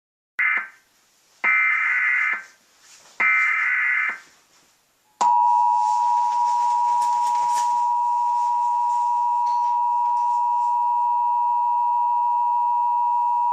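Emergency Alert System broadcast. It opens with three short screeching bursts of SAME header data tones, about a second each. These are followed by the steady two-tone EAS attention signal, which sounds from about five seconds in and holds for about eight seconds.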